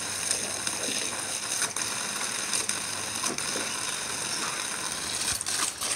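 Garden hose water spraying steadily while a puppy bites and laps at the stream, with a few scattered wet clicks and snaps.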